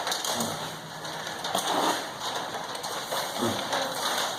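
Steady rain, heard as an even hiss.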